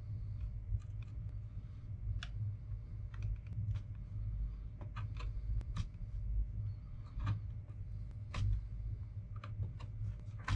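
Irregular small clicks and scrapes of a flat metal blade tool prying and working at parts inside an old laptop, over a steady low hum.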